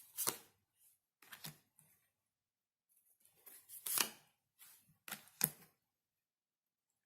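Tarot cards being handled and laid down on a table: several sharp snaps and taps with brief rustling between them.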